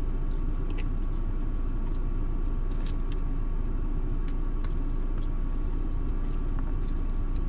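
Steady low rumble of a car idling, heard from inside the cabin, with a faint steady hum and a few small clicks.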